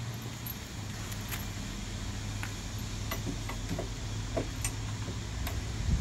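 Faint metal clicks and taps of a speaker pod's clamp and bolts being handled as the pod is held against a golf cart's roof support, over a steady low hum.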